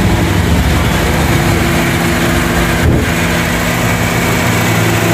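Honda CR-V 2.4-litre inline-four engine idling steadily, with a short break about three seconds in.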